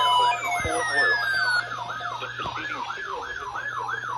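Electronic siren in a fast up-and-down yelp, about three sweeps a second, over a steady low hum. In the first second and a half a second set of tones glides steadily down and fades out.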